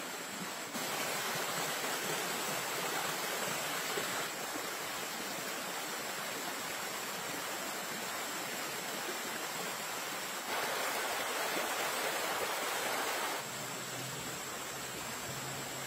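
Running water of a stream: a steady rushing, its level stepping up and down a few times. A thin, steady high tone sits above it.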